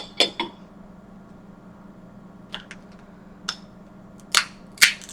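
Sharp clicks and cracks of snow crab leg shells being snapped and broken apart by hand: three quick ones at the start, then scattered single cracks, the loudest two near the end.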